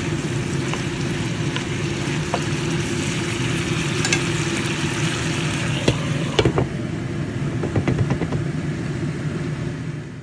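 Potato, pumpkin and chicken sizzling as they are stir-fried in a hot pan, over a steady low hum. A utensil clicks and knocks against the pan several times about six to eight seconds in, and the sizzling fades out at the very end.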